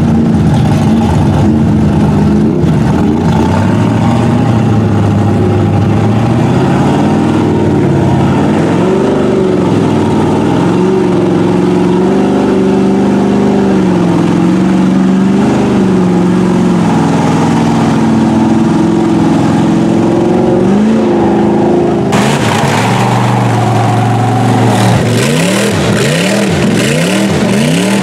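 Lifted Chevy pickup's engine revving up and down as it wades through a river, with water splashing around its big mud tires. About three quarters of the way through the sound changes abruptly, and near the end comes a fast run of rising and falling revs as a truck churns through mud and water.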